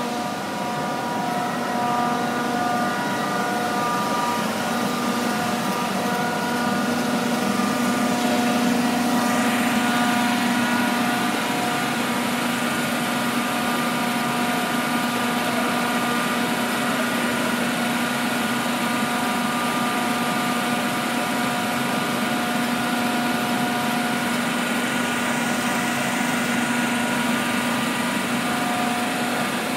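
CK6031B heavy-duty face lathe running with a big drum workpiece chucked: a steady mechanical hum with several constant whining tones from its drive.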